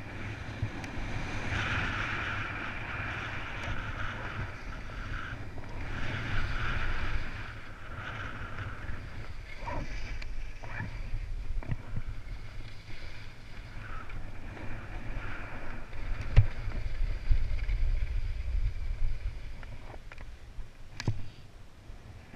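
Wind buffeting a GoPro's microphone during a ski run, over the hiss of skis sliding on packed, groomed snow, strongest in the first third. A few sharp knocks come in the second half, the loudest about two-thirds of the way through.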